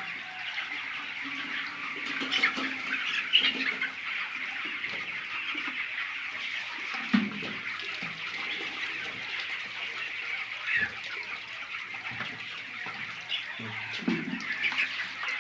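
A large flock of chickens calling at once: a dense, continuous chatter of clucks and cheeps, with a few louder calls standing out.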